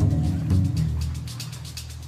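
Background soundtrack music: low held bass notes with light ticking percussion, fading down toward the end.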